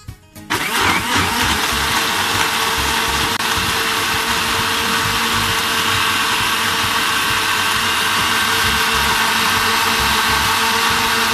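Anex electric blender starting about half a second in and running steadily, blending cooked onion-tomato masala into a smooth gravy.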